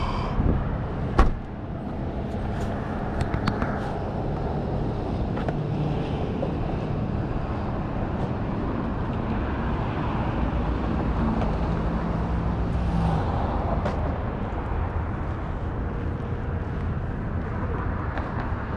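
A car's rear hatch slammed shut about a second in, then steady road traffic noise.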